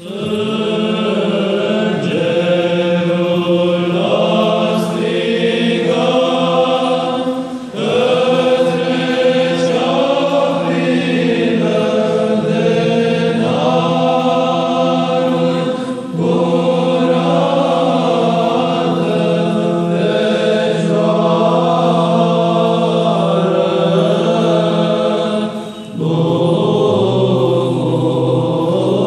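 Choir of Orthodox monks singing the liturgical responses in Byzantine chant, a prominent steady low ison drone held beneath the moving melody, with short breaks between phrases.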